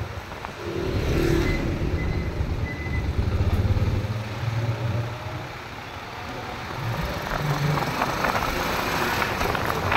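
Vehicle engines running at low speed in street traffic: a low rumble that swells for a few seconds, eases off about six seconds in, then builds again.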